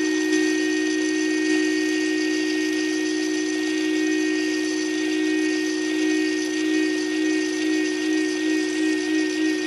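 Hammond E112 organ sounding steady held notes through its vibrato scanner. About six seconds in, a regular wavering pulse sets in and grows stronger, at roughly seven beats a second: the stuck scanner has been freed and is turning, so the vibrato is working again.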